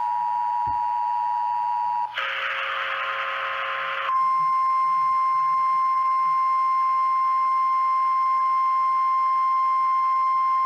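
Emergency Alert System attention signal: the steady two-tone chord, ending about two seconds in, then a buzzy two-second burst of noise. About four seconds in, the single steady, louder 1050 Hz NOAA Weather Radio warning alert tone begins, marking the start of a new warning.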